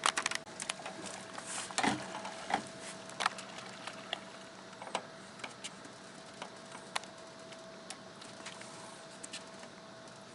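Scattered light clicks and knocks, thick in the first few seconds and thinning out toward the end, over a faint steady hum.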